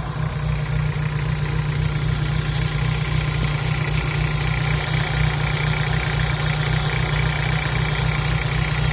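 Volkswagen Gol G4 engine idling with a metallic knocking like iron striking or a loose pulley. A mechanic took it for piston slap; the owner believes it comes from the lower part of the engine.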